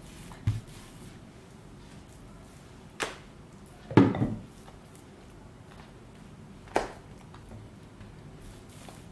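Rolling pin working paratha dough on a marble pastry board, with hands folding and patting the dough. Four sharp knocks against the stone, the loudest about four seconds in.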